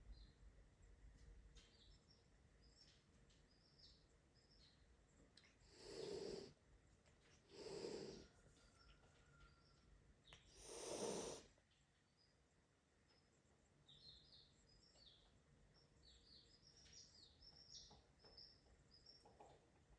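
A cat hissing three times, a couple of seconds apart, the last hiss the longest and loudest. Faint short high chirps are scattered in the background.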